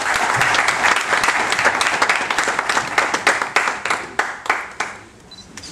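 Audience applauding: dense clapping that thins to scattered separate claps and dies away about five seconds in.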